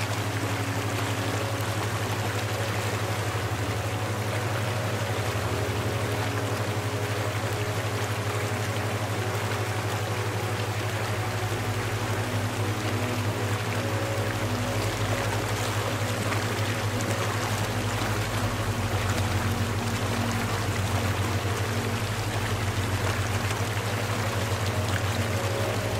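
Steady rush of flowing water, like a stream, over a strong low steady hum and soft held tones that shift every few seconds.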